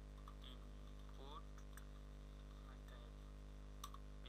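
Steady low electrical mains hum from the recording setup, with a faint murmuring voice now and then and a single sharp click near the end.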